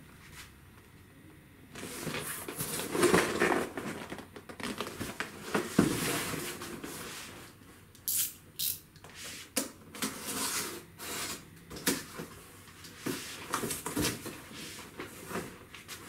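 A cardboard shipping box being handled, then its sealing tape slit with a utility knife: rustling and scraping, followed by a run of short, sharp scrapes and tearing clicks from about eight seconds in.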